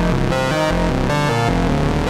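Moog Matriarch semi-modular analog synthesizer played on its keyboard: a melodic line of pitched notes changing several times a second over a moving bass part.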